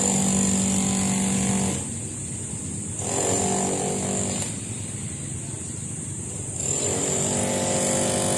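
A motor vehicle engine running with a steady hum that fades out and comes back a few times.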